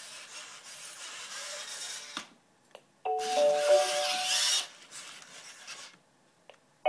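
Genibo QD robot dog playing its short electronic mode sound effects through its speaker. A hissy, rasping sound runs for about two seconds, then after a brief gap a chime of a few steady tones with hiss comes in about three seconds in. Another chime starts right at the end.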